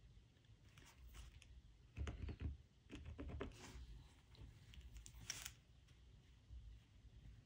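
Faint scratching and light tapping of a pen marking crosses on Aida cross-stitch fabric, with the cloth being handled; a few soft bumps about two seconds in and a sharp tick a little past five seconds.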